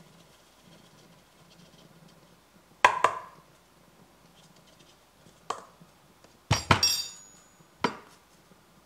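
Sharp taps and knocks of a plastic dosing cup and dosing funnel against a metal espresso portafilter as ground coffee is tapped into the basket. There is a double knock about three seconds in, a lone tap past five seconds, a quick cluster of knocks around six and a half to seven seconds, and a last knock near eight seconds.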